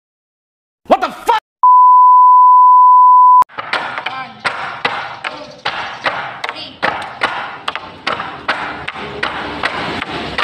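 A brief voice, then a steady high beep for about two seconds. After that, tinikling bamboo poles knock against each other and the floor in a steady rhythm of about three strikes a second, with voices behind them.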